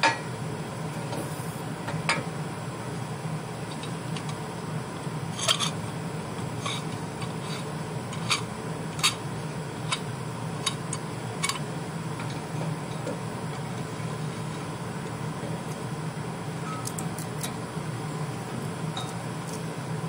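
Scattered sharp metal clinks and clanks as a steel C-clamp is handled and fitted against steel plate, most of them between about five and twelve seconds in, over a steady low hum.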